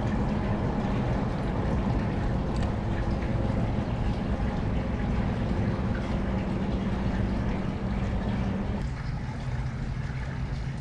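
A motor running with a steady low hum over a hissy wash, changing abruptly about nine seconds in.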